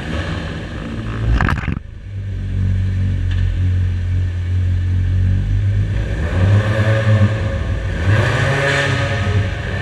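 A car on a workshop test lane with machinery running: a steady low mechanical hum that surges twice near the end, with a short clattering burst about a second and a half in.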